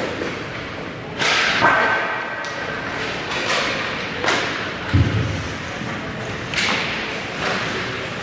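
Ice hockey play: skates scraping and cutting the ice, with sharp knocks of sticks and puck several times, and a heavy thump about five seconds in.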